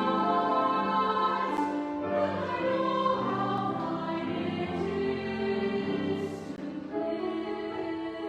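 Children's choir singing a slow choral passage in held notes, with instrumental accompaniment. Near the end the voices stop and the instruments carry on.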